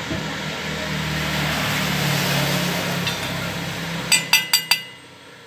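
A steady engine-like drone with a hiss, then about a second before the end four quick, ringing metallic hammer taps on a steel T-handle welded onto a broken exhaust stud in a motorcycle cylinder head, tapped to loosen the stud.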